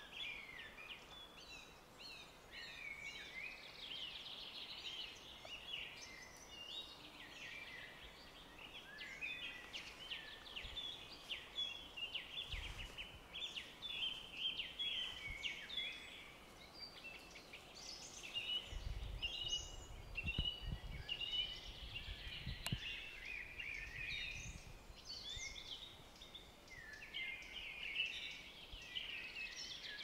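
Several songbirds singing and chirping at once, a dense, continuous spring chorus. A few short low rumbles come through about halfway in.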